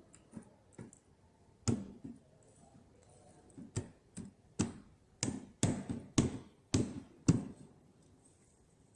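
Parts of a kids' electric ride-on bike being fitted by hand, with the brake pedal going on: a series of sharp clicks and knocks, one about two seconds in, then seven or eight more about half a second apart.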